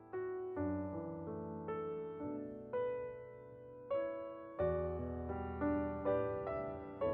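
Gentle background piano music: single notes struck about once or twice a second, each left to ring and fade.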